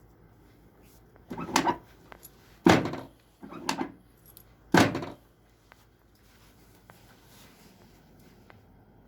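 Four thumps, roughly a second apart, from a chiropractic spinal adjustment on a treatment table. The loudest come about three and five seconds in.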